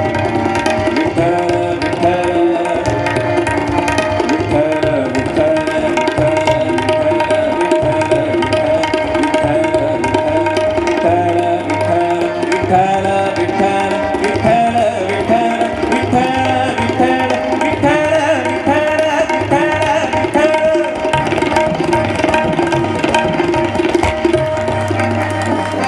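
Tabla played in fast, dense strokes, accompanying a male Hindustani classical vocalist singing over a steady drone.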